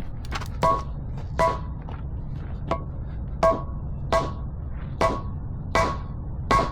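A mallet tapping a concrete paving slab to bed it down, about ten strikes at an even pace of roughly one every 0.7 s, each knock ringing briefly.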